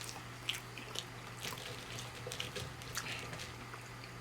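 Close-miked chewing: soft wet mouth clicks and smacks at irregular intervals, over a steady low electrical hum.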